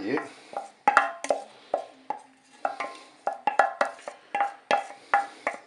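A saucepan being emptied of melted chocolate into a glass mixing bowl, with a utensil clinking and scraping against the metal: a string of light knocks, two or three a second, each with a short ring.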